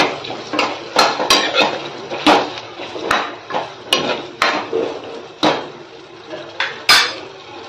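A spatula knocking and scraping against a kadhai as chopped vegetables are stirred and tossed, in irregular clacks roughly every half second.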